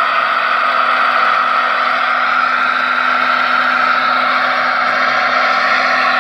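RC model excavator's electric motors running with a steady, high whir.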